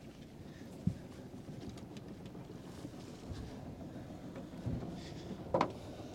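Sailboat's inboard engine idling at the mooring, mixed with wind on the microphone. A few soft knocks and a brief squeak near the end.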